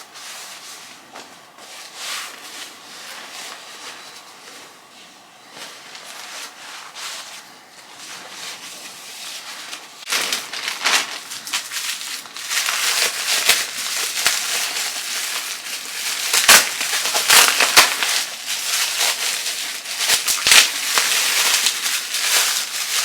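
Packaging being handled and opened, rustling softly at first, then from about ten seconds in loudly crinkling and crackling with sharp snaps.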